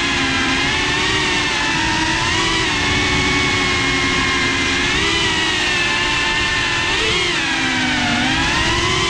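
GEPRC Cinelog 35 cinewhoop drone's brushless motors and ducted propellers whining, heard from the onboard camera. The pitch rises and falls with the throttle and dips briefly near the end.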